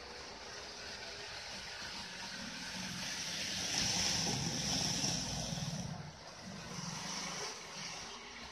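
Model train of a JR 313 series electric multiple unit running past on elevated track: a rumble and hiss from its motor and wheels that swells as it comes closest, about four seconds in, and then fades.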